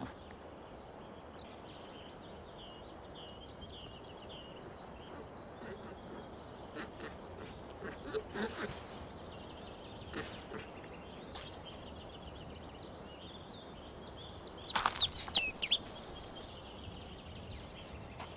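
Outdoor ambience of small birds chirping in short repeated calls over a faint steady background hiss, with a brief louder flurry of quick sounds about fifteen seconds in.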